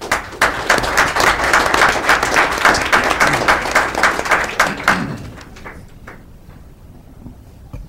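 Audience applauding for about five seconds, with many quick claps that die away.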